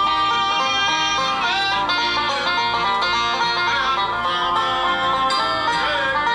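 Banjo and acoustic guitar picking a bluegrass tune, played back through a phone's speaker.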